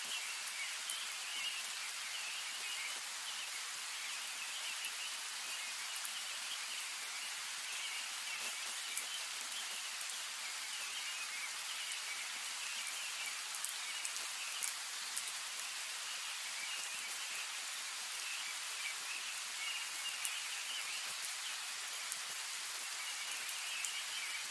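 Steady rain falling on a wet surface: an even hiss with scattered light drop ticks.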